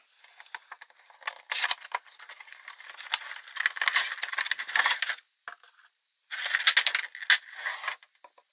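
Handling of a cardboard window box and its clear plastic tray: the end flap is opened and the tray slid out, giving cardboard scraping and plastic crackling with small clicks in three bursts, about a second in, from about three to five seconds, and near seven seconds.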